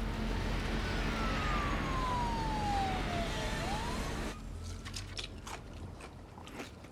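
Busy street noise with a siren gliding down in pitch, cut off abruptly about four seconds in. Then, in quieter surroundings, loud open-mouthed chewing with crunchy clicks.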